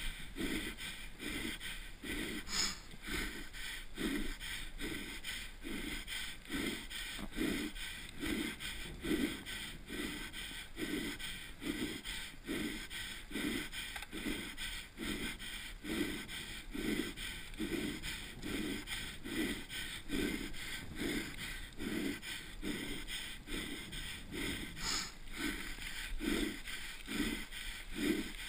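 A mountain-bike racer breathing hard in a quick, even rhythm close to the microphone, over a steady hiss of wind and tyres on the path.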